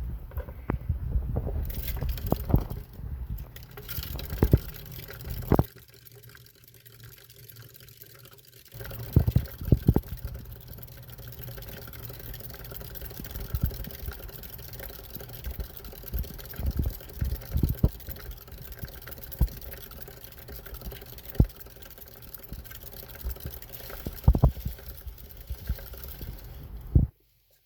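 Hamster running, with many irregular clicks and knocks, over a person's heavy breathing close to the microphone. It goes quieter for a few seconds about six seconds in, and cuts off suddenly near the end.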